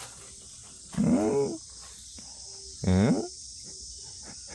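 Two short wordless vocal sounds, each rising and falling in pitch, about a second in and about three seconds in, over insects chirring steadily in the background.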